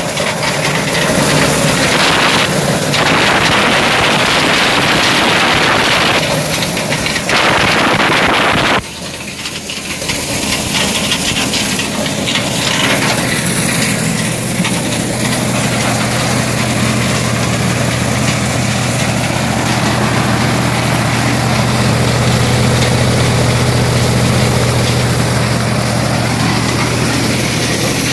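Engine-driven corn sheller running: a loud, steady mechanical din of the machine and its engine. About nine seconds in, it drops suddenly to a steadier, lower engine hum.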